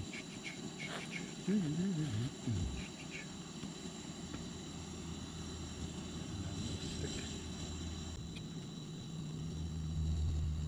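Steady hiss of a lit gas canister camp stove burning. A short voice sounds about two seconds in, and a low hum comes in about six seconds in.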